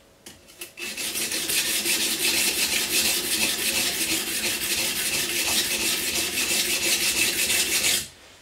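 Large steak knife blade rubbed quickly back and forth flat on a bench stone, a continuous scraping of steel on stone that starts about a second in and stops abruptly near the end. The blade is being thinned out behind the edge, the pressure worked along the long blade.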